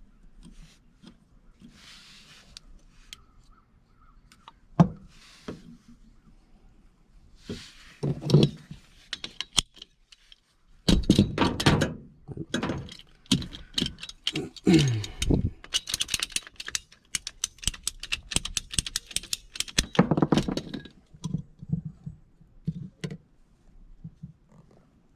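Hands working on PVC drain pipe and fittings: irregular plastic knocks, clicks and scraping, with a quick run of rapid clicks and rattles over several seconds in the second half.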